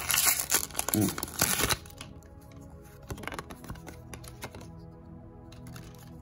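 Foil booster-pack wrapper crinkling and tearing as it is pulled open, loud for the first two seconds. After that, soft background music with faint handling of the trading cards.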